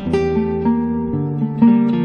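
Background music: acoustic guitar playing a melody over bass notes.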